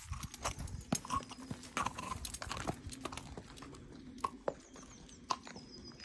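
A horse's hooves clip-clopping at a walk on a paved lane: an uneven run of single clops, one or two a second.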